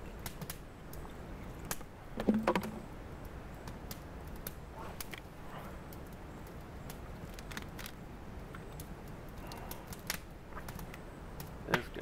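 Handling noise from plastic water bottles being picked up and set down: scattered light clicks and rustles, with a louder knock and rattle a little over two seconds in and a sharp click near the end.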